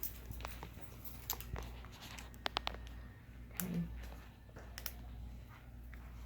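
Light clicks and taps of hands working zip ties and cables on the trike's handlebar, with a quick run of clicks about two and a half seconds in, over a steady low hum.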